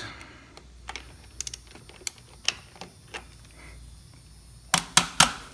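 Socket ratchet clicking in short runs as it turns a bike crank arm's cinch bolt, with a few louder clicks near the end.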